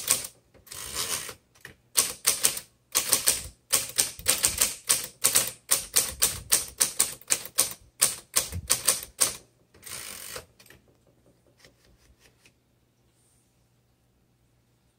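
1962 Royal Custom manual typewriter being typed on: quick runs of sharp key strikes, several a second, for about ten seconds. A longer, drawn-out mechanical sound comes about a second in and again near the end of the typing.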